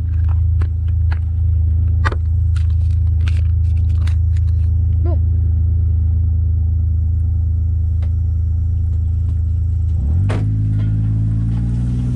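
ATV engine idling steadily, then revving up about ten seconds in as the machine pulls away. Scattered light clicks and knocks sound over the idle.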